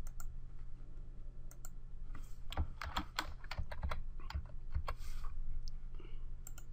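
Typing on a computer keyboard: irregular, sparse key clicks, over a steady low hum.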